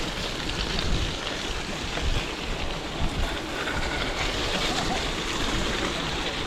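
Steady rush of wind on the camera microphone mixed with the rolling tyre noise of a gravel bike on a trail.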